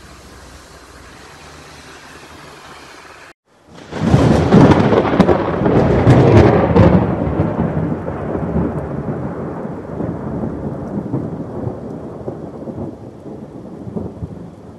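Thunderstorm: a long roll of thunder with heavy rain. It starts suddenly about four seconds in, is loudest over the next few seconds with a few sharp cracks, then slowly fades. Before it comes a quieter steady hiss of rain and running water, which cuts off abruptly.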